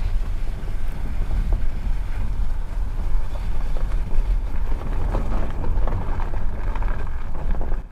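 Car rolling slowly over a snow-packed campground road: steady road and tyre noise under a heavy low rumble of wind buffeting the microphone.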